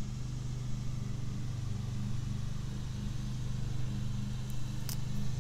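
Steady low machine hum, like a motor running, with one short faint click near the end.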